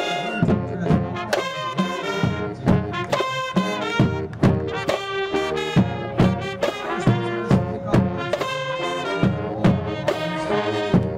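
High school marching band playing, the brass section sounding chords over heavy drum hits on a steady beat.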